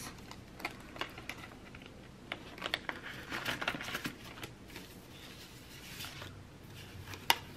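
Paper banknotes and the clear plastic pouches of a cash-envelope binder rustling as they are handled, with scattered soft clicks and one sharp click near the end.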